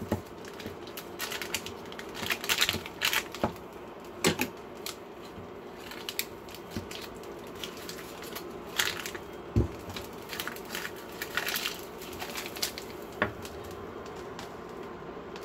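Paper butter wrapper crinkling and rustling as a stick of butter is unwrapped and cut, with scattered light clicks and taps of the knife and a louder knock about ten seconds in as a pat of butter goes into the pan.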